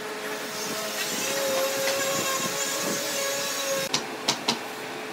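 Steady hum of machinery with a held whine, and three sharp knocks of wood being handled about four seconds in.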